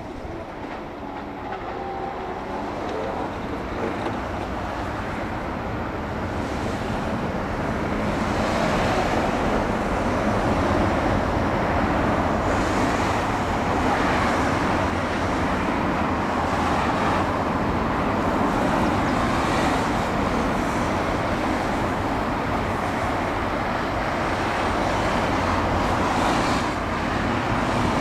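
A train running past on the rails, a continuous rumble of wheels and running gear that builds over the first several seconds and then holds steady.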